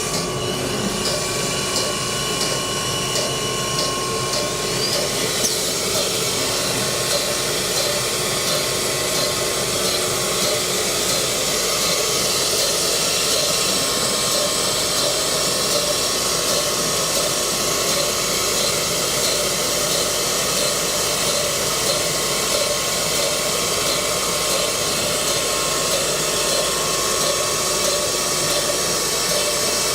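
High-speed four-spindle CNC router running, a steady machine noise with several held tones and no break.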